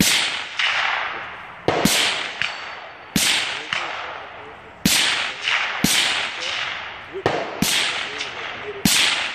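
Rifle shots fired at a steady pace, about seven in all, roughly a second to a second and a half apart. Each sharp crack trails off in a long echo.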